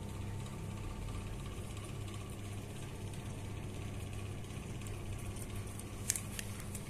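Steady low machine hum, like a motor or engine running, with a few sharp clicks near the end.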